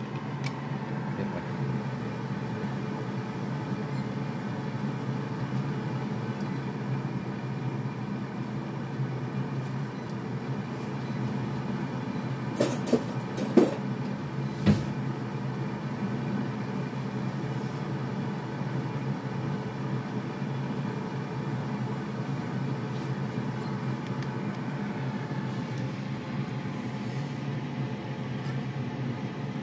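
Steady hum of an electric air fryer's fan running, with a few sharp knocks about halfway through.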